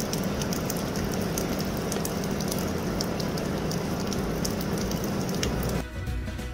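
Heavy monsoon rain pouring down, a dense patter of drops over a steady low hum. It cuts off suddenly near the end, giving way to background music.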